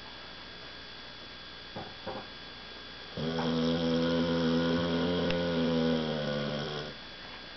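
A sleeping Keeshond snoring: one long, pitched snore lasting nearly four seconds, starting about three seconds in.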